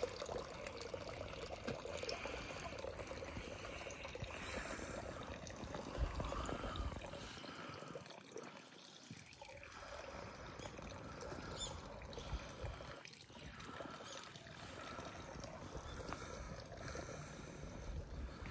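Water trickling and splashing from a bronze dragon spout into the stone basin of a Japanese temple purification fountain (chozuya), a steady trickle that dips briefly twice.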